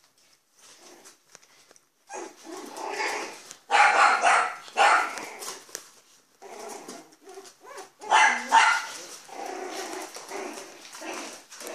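Month-old Bichon Frise puppies yapping in short barks as they play. The barking starts about two seconds in and is loudest around four and eight seconds.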